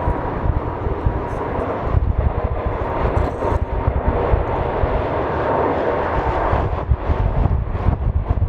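Airliner's jet engines rushing past, swelling in the middle and easing near the end, with a faint steady whine. Wind buffets the microphone throughout.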